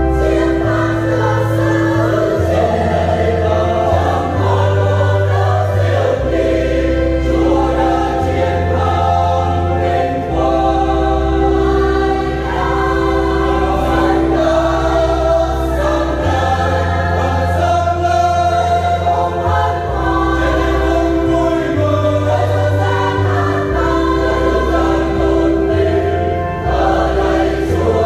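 Church choir singing a Vietnamese Easter hymn over an accompaniment of long held bass notes that change every few seconds.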